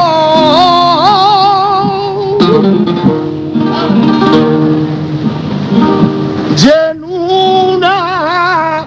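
Flamenco cante with guitar: a male singer holds long, wavering ornamented notes over flamenco guitar accompaniment, drops out about two seconds in while the guitar plays on alone with quick plucked runs, and comes back in near the end.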